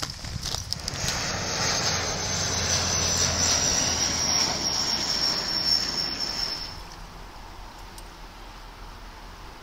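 Twin-turboprop airliner passing low overhead: a loud rush with a high whine that slowly falls in pitch over a low drone. It starts about a second in and cuts off suddenly just before seven seconds, leaving a quieter steady noise. A few crunching footsteps on shingle come at the very start.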